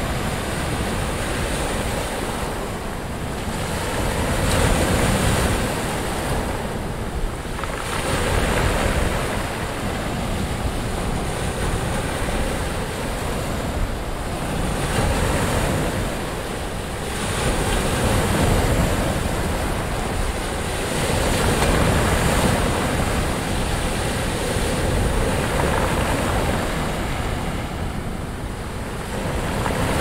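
Ocean surf: waves breaking and washing in, a continuous rushing that swells and ebbs every few seconds.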